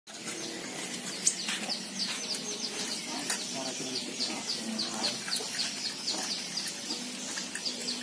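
Sunbird chirping in a fast, steady run of short high notes, each dropping in pitch, several a second.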